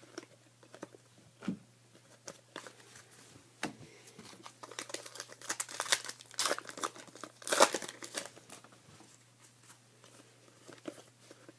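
Plastic wrapper of a 2014 Panini Prestige Football card pack crinkling and tearing as it is opened, a dense run of crackles that is loudest around the middle.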